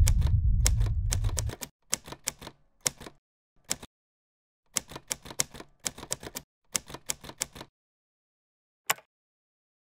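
Rapid keystrokes typed in short runs of several clicks, ending with one single key click near the end. A deep low rumble under the first keystrokes dies away about a second and a half in.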